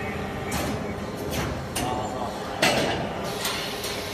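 Injection molding machine running: a steady mechanical hum, with several short, sharp noisy bursts from the machine's moving parts. The loudest comes about two and a half seconds in.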